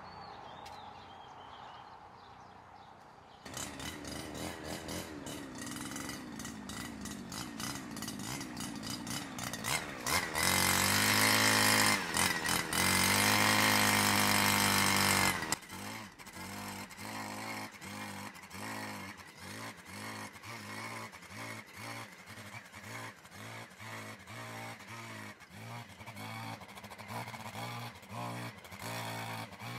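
Petrol brush cutter running with its blade working into dry soil and leaves. It starts about three and a half seconds in, is held at high revs for several seconds near the middle, then rises and falls in quick, regular surges as the throttle is worked.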